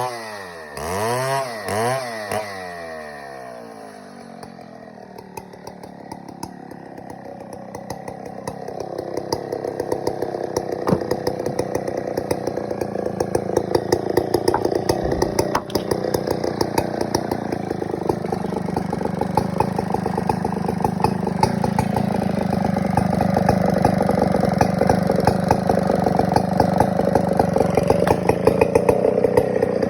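Large two-stroke chainsaw, a Stihl 070: the engine drops from high revs with two short throttle blips, then runs low for a few seconds and builds back up, getting steadily louder and harder-working through the second half.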